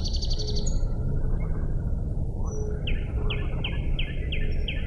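Birds chirping outdoors over a steady low rumble of road traffic: a quick high trill in the first second, then a run of about seven short, falling chirps from about three seconds in.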